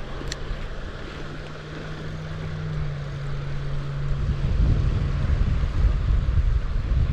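A boat engine running with a steady hum that sinks slightly in pitch, heard through wind buffeting the microphone and the rush of the river. The low rumble grows louder over the second half.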